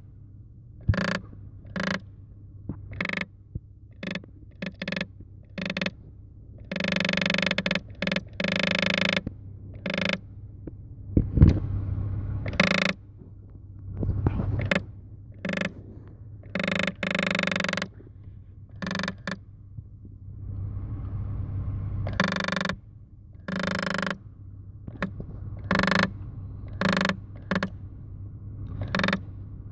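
A 2008 Toyota Sienna's climate-control vent-door actuator, a small geared motor, clicking and grinding in irregular bursts. Some bursts are single clicks and others grind on for a second or more. Its worn internal position contacts no longer tell it that the vent door is already open, so the motor keeps running and its gears rub and skip.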